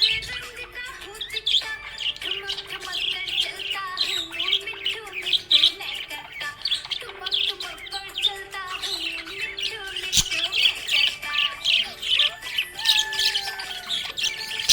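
Budgerigars chirping and warbling in a fast, continuous chatter, over a steady background melody. A single sharp click about ten seconds in.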